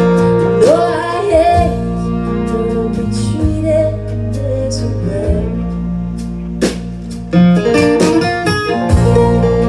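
Acoustic guitar and electric bass playing a folk song live, in a stretch without sung words, with a few sharp strummed accents about seven seconds in.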